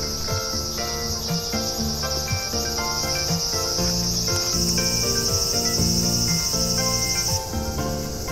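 A loud, steady, high insect buzz that cuts off suddenly about seven seconds in, over background music of short melodic notes.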